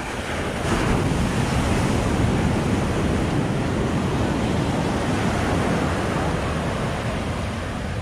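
Surf washing onto a sandy beach: a steady rush of breaking waves that swells about a second in and eases slightly near the end, with wind buffeting the microphone.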